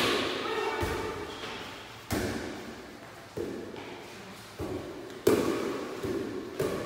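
An air volleyball being struck back and forth by hand in a rally: a series of sharp hits, about one a second, each ringing out in the hall's echo.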